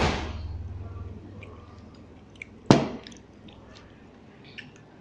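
Table noises while eating: a rustling swish at the start that fades over about a second, then one sharp knock, as of a plate or bottle on the table, about halfway through, with a few faint clicks.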